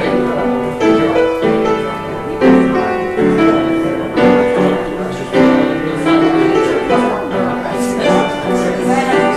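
A keyboard instrument playing a slow tune in chords, with held notes that change every half second to a second.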